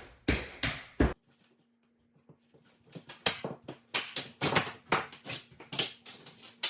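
Hammer striking nails in pulled-off baseboard trim to bend them over, three quick blows in the first second. After a short lull, an irregular run of lighter knocks and taps with a faint steady hum under them.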